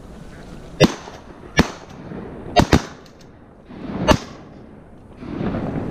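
Volley of shotgun shots from several hunters firing at waterfowl: five sharp reports, two of them close together, over about three and a half seconds.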